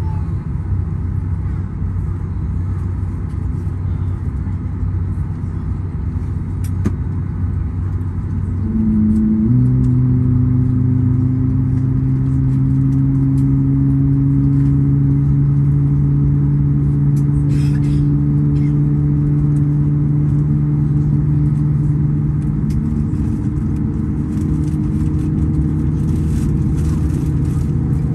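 Aircraft engines giving a steady, loud low rumble. About nine seconds in, a set of steady engine hums rises in pitch and loudness and then holds, as the engines spool up.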